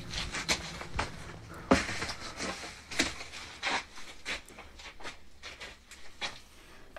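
Scattered, irregular soft knocks and scuffs, about a dozen over several seconds, over a faint low hum: footsteps and handling noise from a phone carried through a room.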